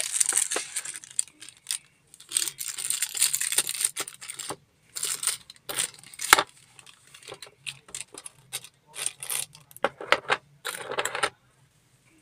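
Thin clear plastic wrapping crinkling and rustling in irregular bursts as small radio accessories are lifted from a moulded box tray and unwrapped, with light clicks and knocks of hard plastic parts. It stops about a second before the end, leaving a faint steady low hum.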